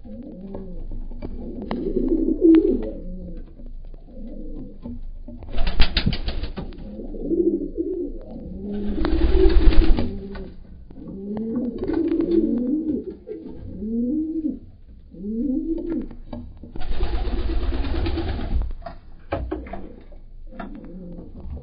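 Pigeons cooing again and again, low rolling coos that overlap. Three short bursts of wing flapping break in: about six seconds in, just before the ten-second mark (the loudest), and again around seventeen seconds.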